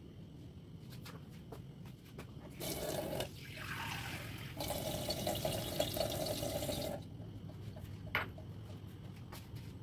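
Water poured into an unglazed clay cooking pot over the meat, running for about four seconds with a brief break partway through.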